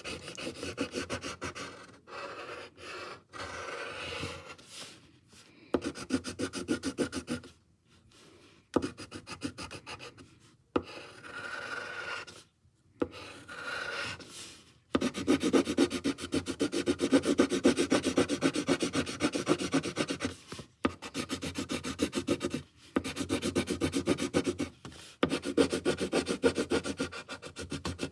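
Colouring in on paper with rapid back-and-forth scribbling strokes, in bouts broken by short pauses. The longest and loudest run starts about halfway through.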